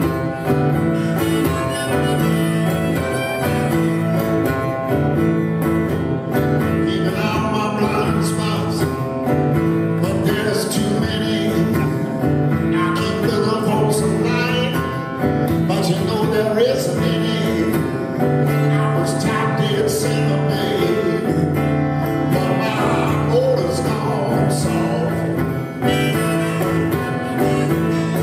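Acoustic guitar played live, a steady repeated strummed pattern of country-style chords, with a wavering melody line over it through the middle of the stretch.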